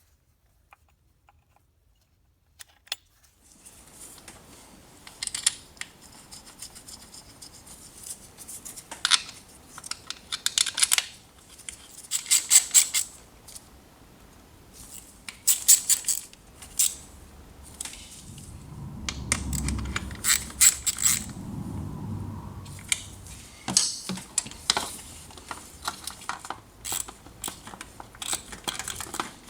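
Hand-tool work on a car engine: repeated bursts of rapid metallic clicking and clatter, with a short spell of duller handling noise partway through. It follows a few seconds of near silence.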